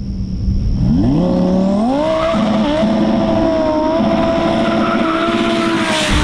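Lamborghini Huracán's V10 engine accelerating hard toward and past the camera. Its pitch climbs in two steps over the first two seconds, holds high and steady, then dips slightly near the end as the car goes by.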